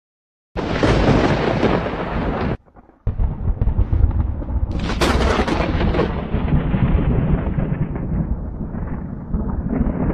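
Thunder sound effects: a crash of thunder that cuts off abruptly, then a second thunder clip with a sharp crack about five seconds in that trails into a long rolling rumble.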